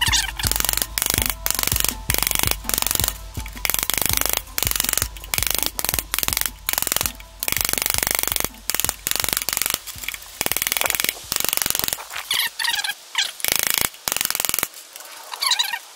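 A hammer striking a long steel bar against the internals of a Ford flathead V8 block during teardown, knocking stuck parts loose. It makes a rapid, uneven string of sharp metal-on-metal strikes that grow sparser near the end.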